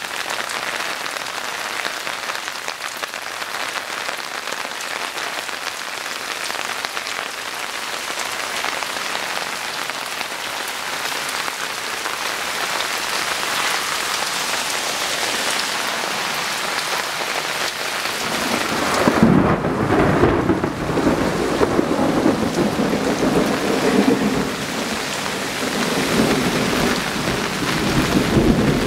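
Steady heavy rain falling. About two-thirds of the way through, thunder rumbles in and rolls on in waves.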